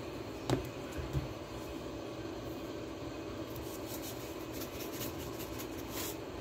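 Seasoning shaken from a spice shaker over a pot of broth: a run of quick faint rattles from about three and a half seconds in, over a steady background hum, with two light knocks in the first second or so.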